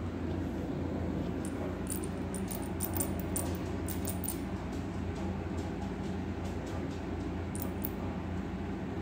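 Cats batting a fish-shaped toy on a hardwood floor: light clicks and taps come in a cluster from about two seconds in and again near the end, over a steady low hum.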